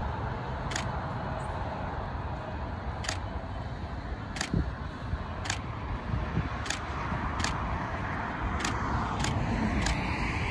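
Steady rumble of freeway traffic, with the Boeing 777-300ER's GE90 engines on final approach adding a hiss that swells over the last few seconds. Sharp faint ticks come about once a second.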